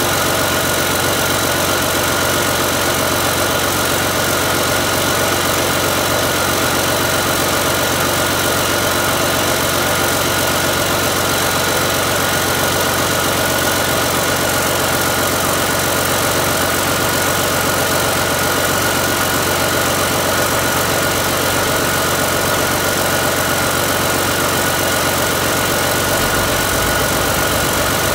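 2011 Cummins QSB6.7 inline-six turbo diesel running steadily at idle, with no change in engine speed.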